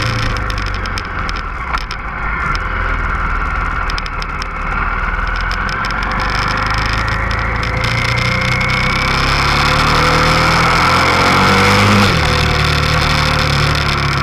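Motorcycle engine heard from on board, over a steady rush of wind noise. The engine note climbs steadily for several seconds, then drops sharply about twelve seconds in, as at a gear change or the throttle closing.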